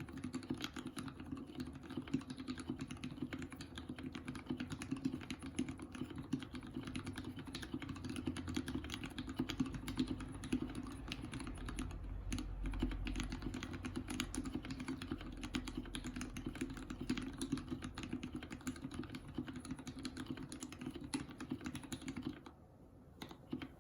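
Rapid, continuous typing on a TX-75 V2 custom mechanical keyboard with Krytox-lubed Gateron Ink switches on a brass plate and EPBT PBT keycaps. The keystrokes stop shortly before the end.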